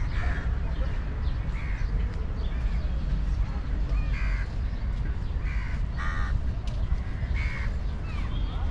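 Crows cawing repeatedly, with smaller birds chirping and a steady low rumble underneath.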